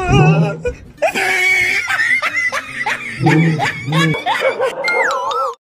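Laughter: snickering and giggling, with a quick run of short repeated laughing syllables in the middle. It opens with a dull thump, and near the end a whistle-like tone slides down in pitch.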